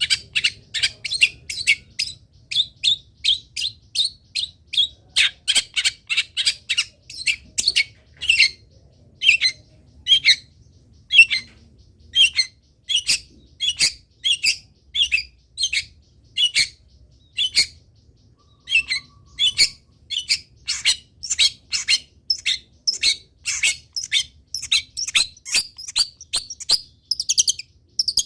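Long-tailed shrike (cendet) singing a rapid series of short, sharp chirping notes, about three a second, with a brief pause about two-thirds of the way through.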